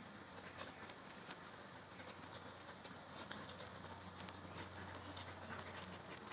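Faint scuffling of two huskies play-wrestling on concrete: light scratches and taps from paws and claws, scattered irregularly, over a low steady hum.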